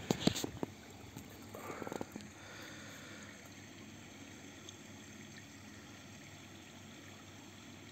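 Faint steady outdoor background noise, with a few short clicks and soft handling sounds in the first two seconds.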